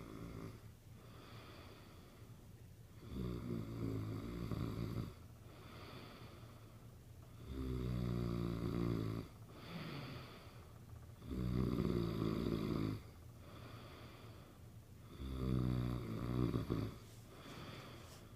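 A sleeping man snoring: four loud snores about every four seconds, each lasting under two seconds, with a quieter breath between them.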